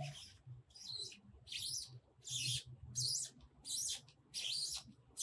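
Scratchy rustling of a Rode VideoMic Me's furry windshield being rubbed and worked between the fingers. There are about seven short strokes, roughly one every 0.7 s.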